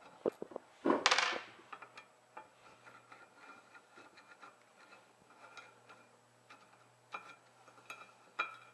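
Small metallic clicks and ticks of a screwdriver turning out and handling the countersunk screws that hold an engineer's vice jaw faces, with a louder scrape about a second in.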